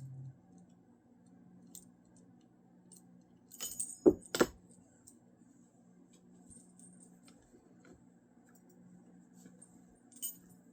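Small metal objects clinking and clattering, with two sharp knocks about four seconds in and a few light clicks around them.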